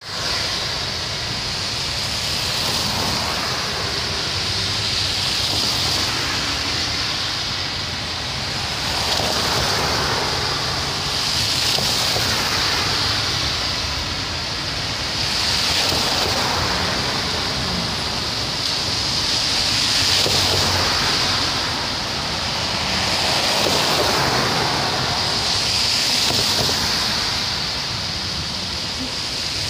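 Busy city traffic on a wet, slushy road: a steady hiss of tyres on wet asphalt that swells every two or three seconds as vehicles pass.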